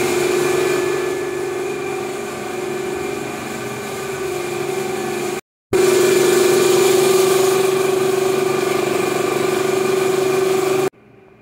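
A steady, loud mechanical hum from a running motor, holding one constant mid-pitched tone with fainter higher tones above it. It breaks off briefly about halfway through, starts again, and cuts off abruptly near the end.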